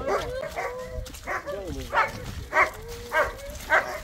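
A dog barking over and over in short, sharp barks, about five in the last three seconds.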